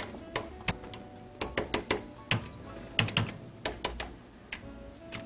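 Computer keyboard being typed on: a string of irregular, sharp key clicks, with faint background music underneath.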